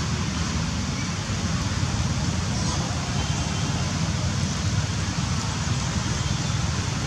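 Steady low rumble of street traffic and wind, with no single sound standing out.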